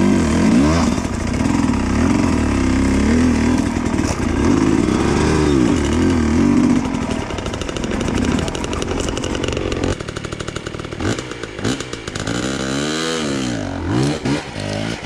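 Dirt bike engine ridden hard, revving up and down in repeated surges. From about ten seconds in, the throttle comes in shorter, separate blips with brief drops between them.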